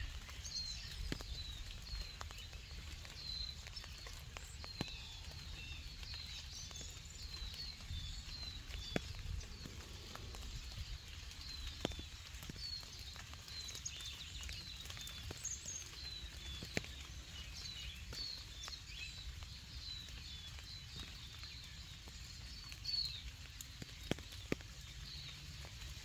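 Small birds chirping in many short, high calls, with scattered drops of rain pattering and a low background rumble.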